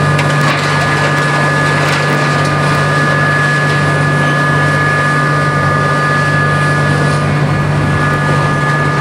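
A steady mechanical engine drone with a constant low hum and a thin, even high whine, unchanging throughout.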